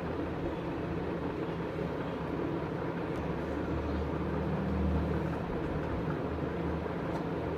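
Steady low rumble and hiss of background noise, a little louder about four to five seconds in.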